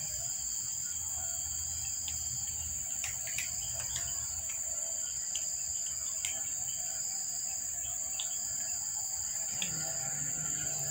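Insects droning in a steady high-pitched whine, with a few faint clicks a couple of seconds in.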